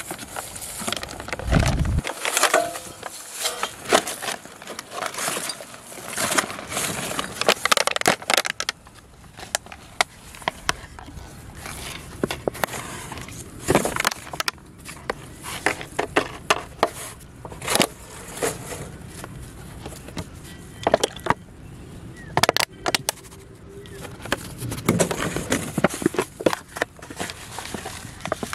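Close handling noise: plastic bags and packaging crinkling and rustling, with scattered sharp clicks and taps, as fish bait is prepared by hand.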